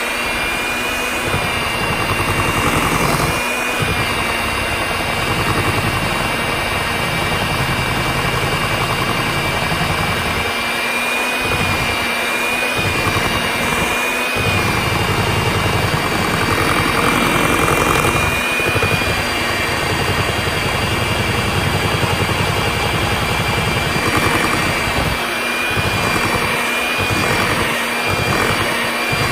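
Electric hand mixer running steadily with a high motor whine, its beaters whipping a thick shea butter mixture in a stainless steel bowl.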